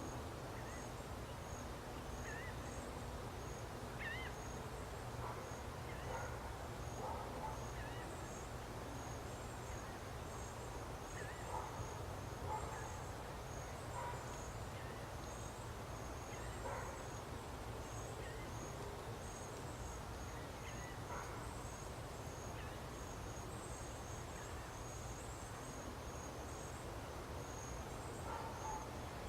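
Birds calling here and there over a steady low rumble, with a high, thin chirp repeating evenly about one and a half times a second.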